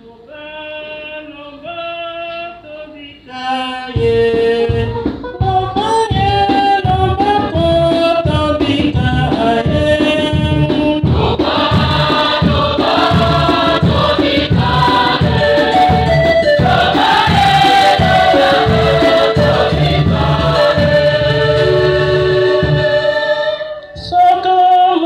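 A church choir and congregation singing a gospel hymn together, quieter for the first few seconds, then joined by a steady low drum-like beat from about four seconds in. The beat drops out near the end as the singing starts again.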